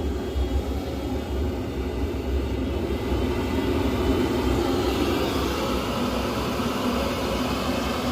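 Biasi gas boiler running after firing up, its fan and burner making a steady low rumble. The boiler is working again with a new flue temperature probe fitted to clear an error code 09.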